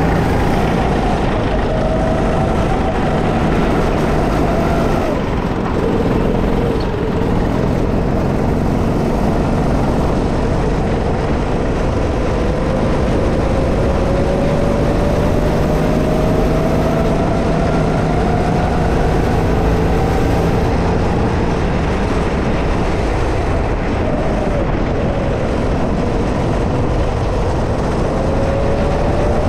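Go-kart engine running flat out on the track. Its pitch drops about five seconds in, climbs slowly through the middle as the kart gathers speed, falls again around twenty seconds, and rises once more near the end, over a heavy constant rumble.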